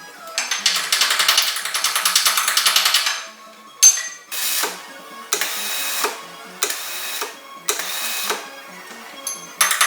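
A power tool rattling in bursts: one long burst of about three seconds, a sharp click, then several short bursts about a second apart, with background music underneath.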